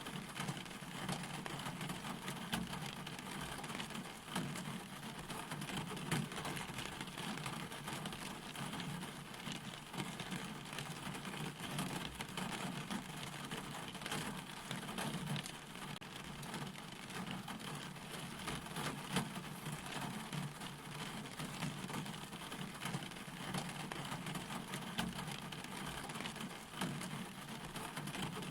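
Steady rain falling, with many fine drop ticks over a continuous hiss.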